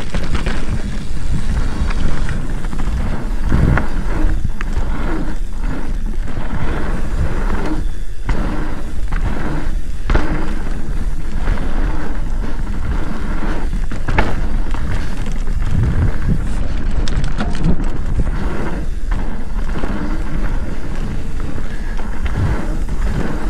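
Mountain bike riding down a dirt trail: a loud, steady rumble of tyres on the ground, broken by frequent knocks and rattles from the bike over bumps.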